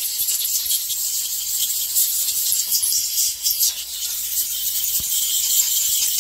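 Aerosol carburetor cleaner sprayed through a straw into the passages of a Poulan chainsaw carburetor: a steady, loud hiss that flutters a little.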